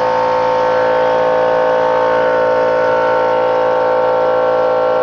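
1/2 in. air ratchet wrench running under air pressure, spinning out a transmission pan bolt with a loud, steady whine that shifts slightly in pitch about two seconds in.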